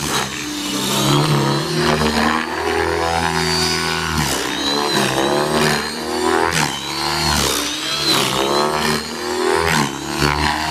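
Align T-Rex 600E electric RC helicopter in aerobatic flight: motor whine and rotor noise rising and falling in pitch over and over as its load changes through the stunts.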